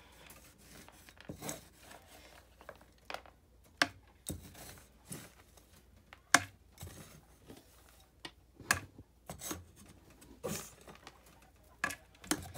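A giant spoon scooping soiled wood-shavings litter out of a plastic litter tray and tipping it into a garbage can: irregular scrapes, rustles and sharp knocks every second or so.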